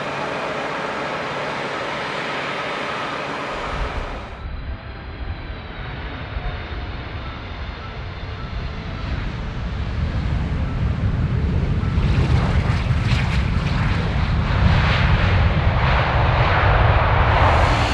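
Four jet engines of a landing Boeing 747 freighter: a low rumble that grows steadily louder as it comes in over the runway. From about twelve seconds in it turns into a broad, loud noise as the main gear touches down and the tyres smoke. A different, steady sound is cut off about four seconds in.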